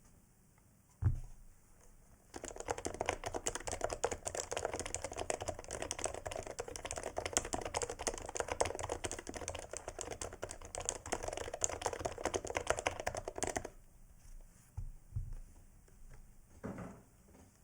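Typing on a Sho Snipe Topre electro-capacitive keyboard built on a brass plate with aged domes and #5 silencing rings: a single knock about a second in, then about eleven seconds of fast, dense keystrokes, then a few scattered single keys near the end.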